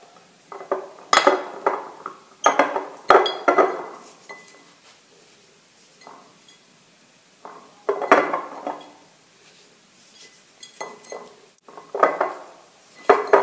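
Glass jar clinking and knocking as lemon rounds are dropped and pressed into it in layers, each given a pinch of salt: preserved lemons being packed. The clinks come in short clusters with quiet gaps between them.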